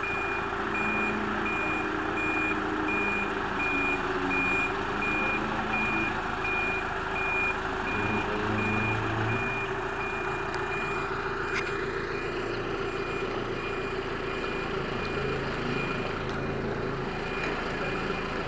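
Manitou Maniscopic telehandler's reversing alarm beeping at a steady, even rate as the machine backs up, with its diesel engine running underneath, the engine note shifting a few times as it manoeuvres.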